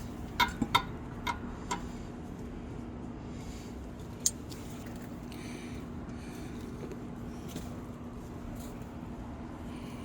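Metal hand tools clinking as a 17 mm socket and wrench are handled: about five sharp clicks in the first two seconds and one more about four seconds in, over a steady low hum.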